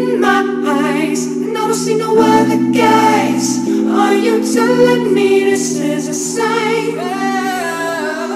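Background music: a slow song with layered sung vocals over sustained chords that change every second or so.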